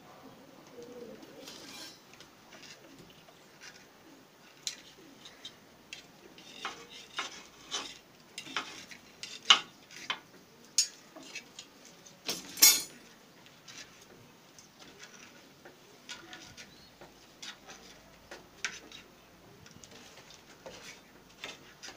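A knife tapping and scraping against a plate in irregular clicks as it scores slits into a raw spleen (tilli). The sharpest clicks come a little before and a little after the middle.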